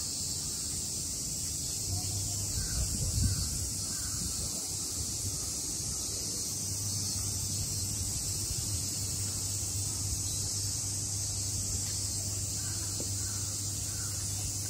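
Steady high-pitched drone of a summer cicada chorus, with crows cawing now and then.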